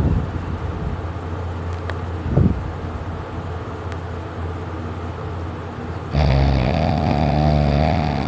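A man snoring in his sleep. A loud snore starts suddenly about six seconds in and lasts about two seconds.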